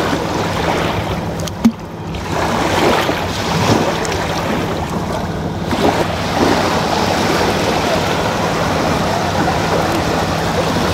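Small waves breaking and washing over a muddy riverbank, a steady rush of water, with one sharp knock about two seconds in.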